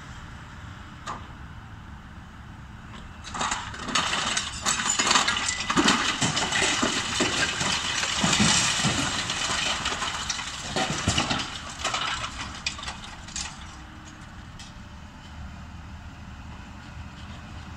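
Long-reach demolition excavator's jaws breaking up the concrete top floor of a building: a dense run of sharp cracking and breaking from about three seconds in until about twelve seconds in, over the low, steady running of the machine's engine.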